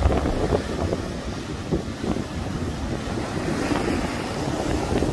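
Storm-force wind buffeting the phone's microphone in a low, gusting rumble, over heavy surf breaking on the shore.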